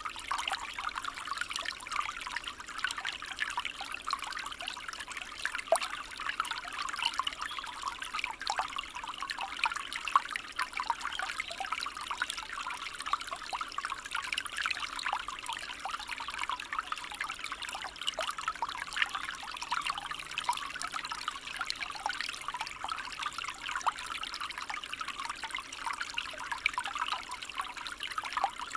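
Small stream trickling and babbling steadily: a dense, even patter of running water, with a few brief sharper splashes.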